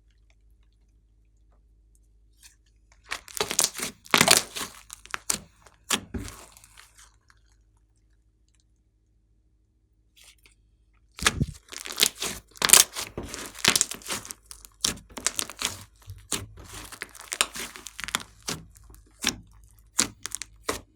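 Slime being stretched, squeezed and pressed, with crackling pops and tearing sounds. There are two spells of handling, one a few seconds in and one from about halfway on, with a quiet pause between them.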